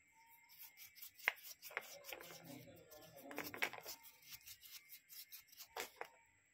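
Hands handling a stone close to the microphone: irregular rubbing and scraping with quick clicks, the sharpest about a second in and two more near the end.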